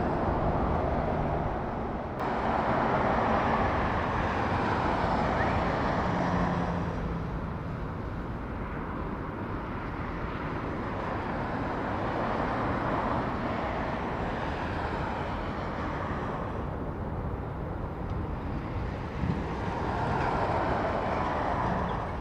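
Four Rolls-Royce Trent 500 turbofan engines of an Airbus A340-541 at takeoff thrust: a steady jet rumble and rush. It steps up about two seconds in, then swells and eases slowly.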